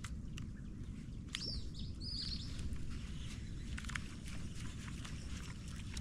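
Outdoor ambience with a steady low rumble and scattered light ticks. A few quick bird chirps come in as gliding whistles between about one and a half and two and a half seconds in.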